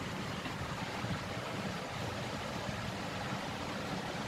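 Steady background hiss with a low rumble underneath, even throughout.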